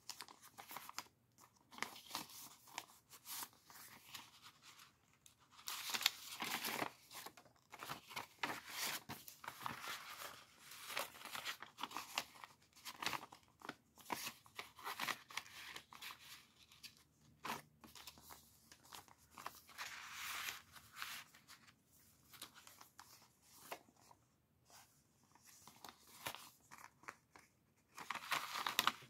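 Paper and card rustling and crinkling as the pages, pockets and loose paper inserts of a handmade junk journal are handled and slid in and out, in irregular bursts with the busiest stretch near the end.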